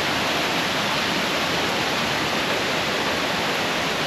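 Steady rushing of water at a mountain waterfall.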